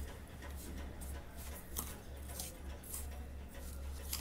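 Steel spoon stirring a dry mix of ground flaxseed and jaggery powder in a steel bowl: faint, intermittent scraping strokes over a low steady hum.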